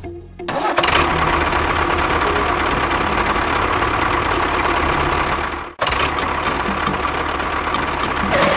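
A small motor running loudly and steadily, with a grinding mechanical rattle. It starts about half a second in and stops briefly once, about two-thirds of the way through, before starting again.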